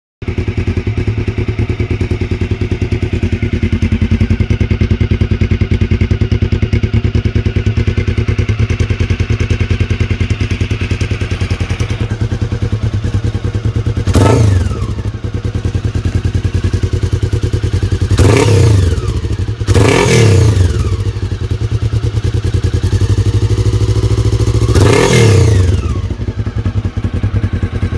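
CB5 motorcycle engine idling through an exhaust with the wool packing removed from the muffler, giving a loud, pulsing rumble. The throttle is blipped four times, each time the revs rising and falling back to idle: once about halfway through, twice in quick succession a little later, and once more near the end.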